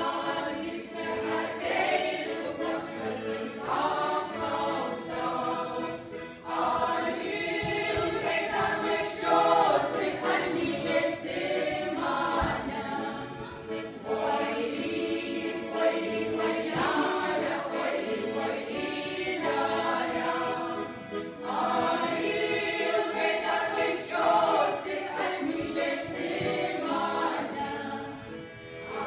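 A women's folk choir singing together in phrases of several seconds, accompanied by an accordion.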